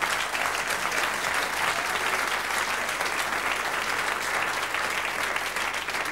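Theatre audience applauding, a dense steady clapping that eases slightly near the end.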